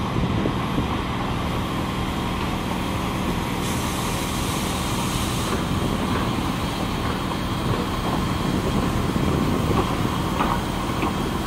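DT668, a D51-type steam locomotive, rolls slowly past with a steady low rumble. A hiss of steam rises for about two seconds just before the middle, and a couple of sharp clicks come near the end.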